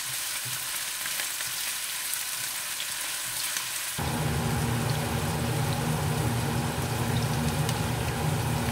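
Chopped onions sizzling in hot oil in a pot while a spatula stirs them, with light scrapes against the pan; the onions are being fried toward light golden. About four seconds in, a steady low hum comes in under the sizzle.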